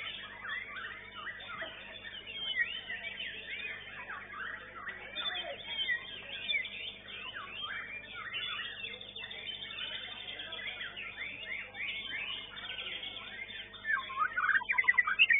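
White-rumped shama (murai batu) singing: a dense stream of quick, varied whistles and chattering phrases, ending in a loud run of rapid repeated notes about a second before the end.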